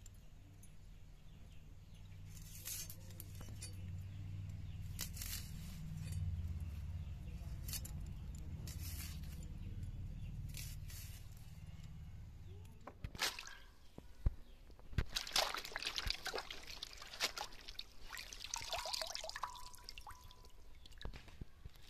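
Dry skins crackling now and then as small red onions are peeled by hand, over a low rumble. A little past halfway this gives way to sharp clicks and splashing and dripping water as a bunch of spring onions is dipped and rinsed in a bowl of water.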